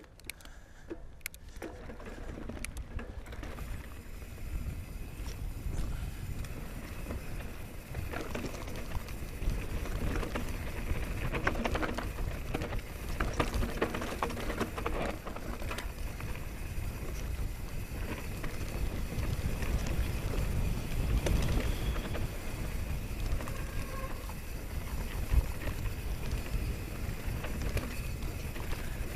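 Mountain bike rolling fast down a dirt singletrack: wind rumbling on the handlebar-mounted camera's microphone, with the tyres and frame rattling and knocking over bumps. It builds over the first few seconds as the bike gathers speed.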